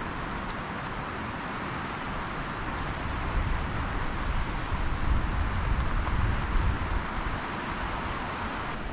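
Steady rush of running water, with wind gusting on the microphone.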